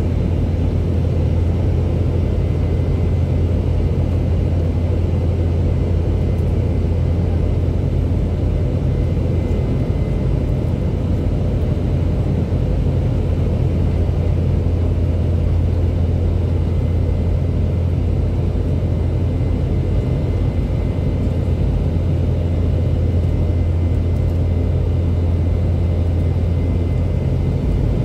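Cabin noise inside a Boeing 717-200 climbing after takeoff: its tail-mounted Rolls-Royce BR715 turbofans and the rushing air make a steady, loud low rumble, with a faint steady high whine above it.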